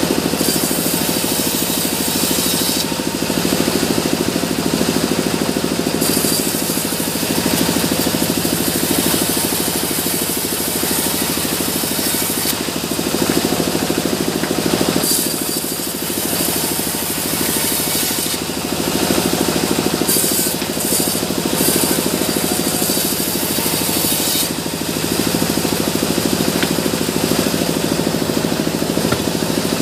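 Sawmill bandsaw running continuously and ripping wooden slabs into boards. A hissing cutting noise comes and goes several times as the blade goes into and out of the wood between feeds.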